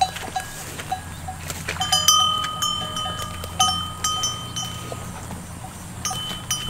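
Metal bells worn by grazing water buffalo clinking and ringing irregularly as the animals move, the strikes coming in short clusters with a lull about five seconds in.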